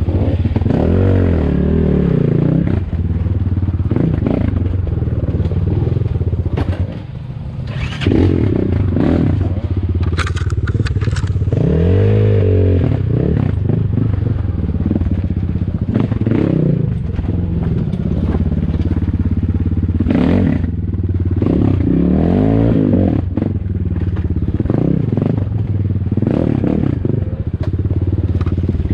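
Off-road motorcycle engines revving up and down over and over above a steady low engine note, with a short drop in loudness about seven seconds in.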